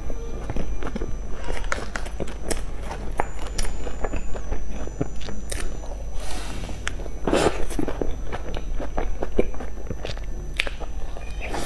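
Close-miked eating of crumb-topped cream puffs: bites through the crisp crumbly crust into the soft cream filling, with chewing and many small wet mouth clicks. A louder stretch of biting comes about six to seven and a half seconds in.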